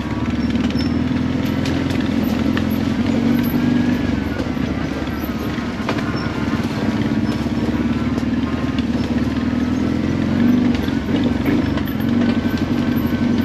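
ATV engine running steadily while riding a trail, its pitch wavering slightly with the throttle, with occasional small clicks and rattles.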